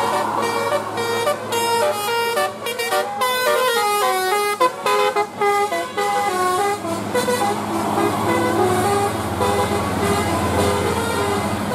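Bus telolet horn, the multi-tone Indonesian bus horn, playing a quick tune of stepped notes that change fastest a few seconds in. The bus engine runs underneath and grows louder in the second half.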